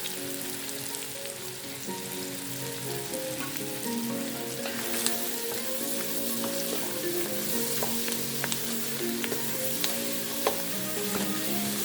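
Shrimp and pak choi stems sizzling in butter in a pan. The sizzle grows louder about five seconds in, and a utensil stirring the pan gives a few sharp clicks.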